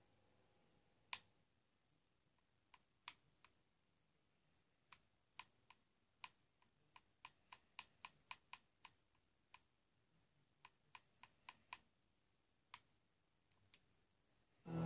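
A series of faint, short clicks while a TV episode is skipped forward on the playback scrub bar, sparse at first, then coming about two or three a second in the middle. At the very end the show's music and sound come back in.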